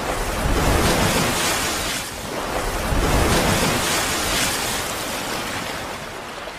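A rushing, surf-like whooshing sound effect from an animated outro, swelling twice and easing off toward the end.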